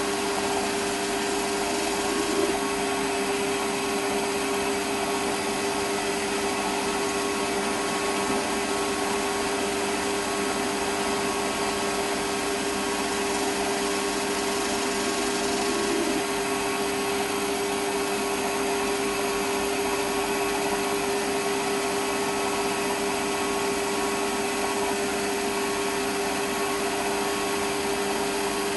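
Metal lathe running steadily at about 700 RPM while a turning tool cuts a workpiece held off-centre in the chuck: an even drone with a cutting hiss. The speed is held down because the offset jaws and workpiece leave the chuck out of balance.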